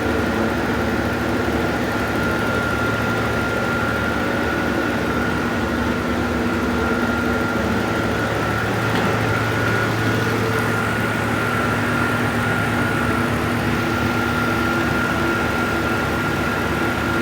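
Steady electric machine hum with a constant high whine, from a bulk milk chiller running while cooling the freshly poured milk.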